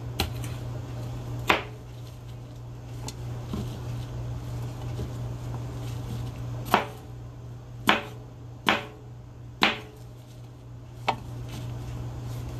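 Chef's knife chopping a bell pepper on a plastic cutting board: about seven sharp, irregularly spaced knocks of the blade against the board, most of them bunched in the second half. A steady low hum runs underneath.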